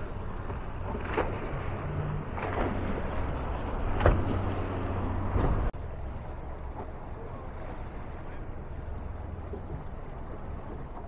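Outboard motors running at low speed on open water, a steady low hum with several brief splashing whooshes of water and wind. About halfway through the sound drops suddenly to a quieter, steady engine hum.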